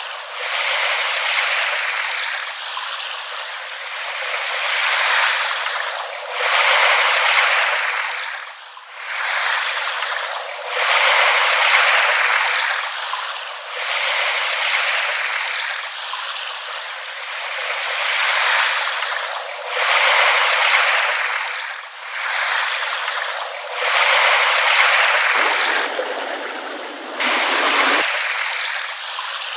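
Small, gentle waves lapping on a shore, each wash swelling and fading about every two to three seconds: a thin hiss with no deep rumble.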